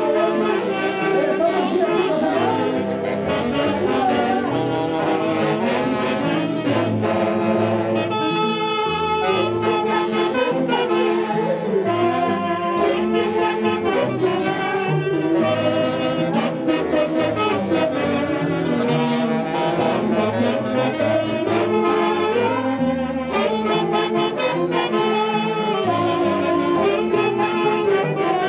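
Live Andean folk orchestra playing an instrumental passage: saxophones carry the melody over plucked harp, with a steady dance rhythm.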